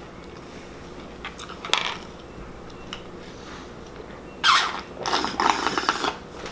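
Sounds of eating a bowl of Honey Nut Cheerios: a few light clicks of a spoon against the bowl, then a louder burst about four and a half seconds in and a second of rapid crackly crunching.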